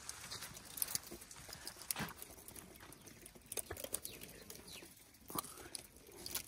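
Elephant chewing a thorny branch: irregular crunches and snaps of twigs and thorns being broken in its mouth.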